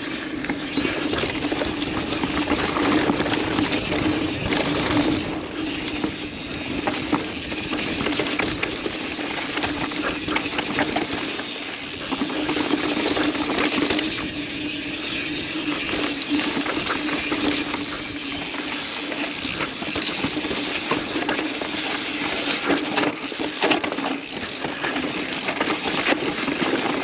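Yeti SB150 mountain bike riding down a dry dirt trail: tyres rolling over dirt and rocks, with the bike clattering over the bumps in a run of quick knocks and rattles, over a steady rushing noise and a steady hum.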